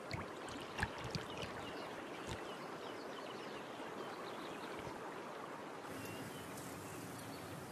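River water lapping and trickling around a crocodile swimming low at the surface, with a few soft splashes in the first two and a half seconds and faint bird chirps over it. The background changes slightly about six seconds in.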